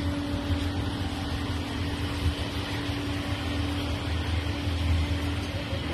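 Steady mechanical hum with one held tone over a low rumble, unchanging throughout.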